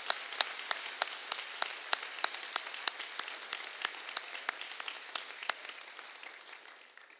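Large audience of students applauding, a dense patter of clapping with a few louder single claps standing out, dying away near the end.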